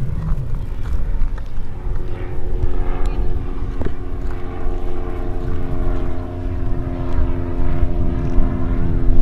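Quadcopter drone's motors and propellers humming at a steady pitch that sets in a few seconds in, over low wind rumble on the microphone.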